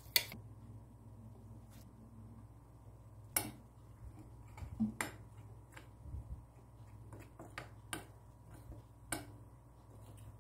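A metal spoon stirring dry flour and spices in a ceramic bowl, with a few sharp clinks of the spoon against the bowl spread irregularly through, over a low steady hum.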